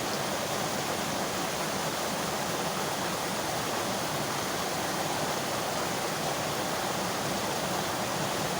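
Steady rushing of flowing stream water, an even, unbroken wash of noise.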